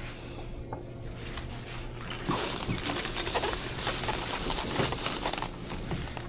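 Heavy rain pattering, louder for about three seconds from about two seconds in, over a steady low hum.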